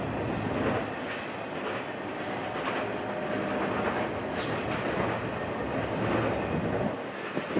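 A steady rumble with hiss from a passing vehicle, fading out just after the end.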